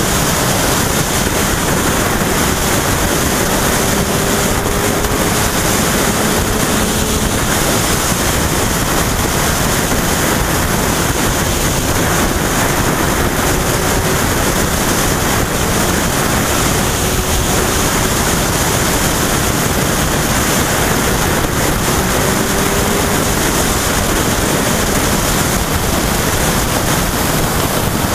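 Motorcycle ridden at road speed, heard from the mounted camera: loud, steady wind rush over the microphone, with the Yamaha FZ1's engine note faintly underneath, drifting up and down a little in pitch.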